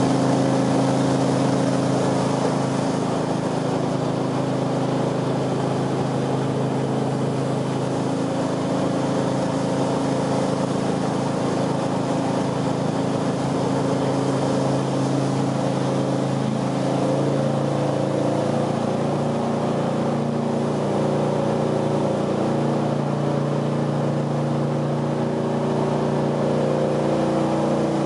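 Jet boat's engine running steadily under way, with a steady rushing hiss over it. Its note shifts slightly in pitch partway through.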